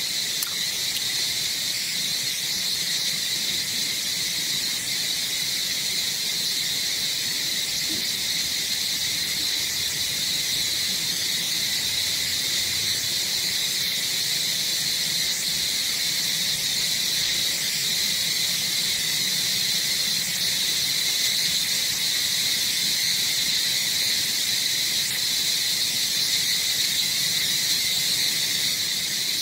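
A steady, unbroken chorus of insects: an even, high buzz with a second, fainter pitch below it.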